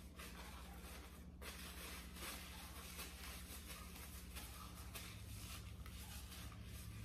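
Faint chewing and small rustling of fingers being rubbed together, over a low steady hum.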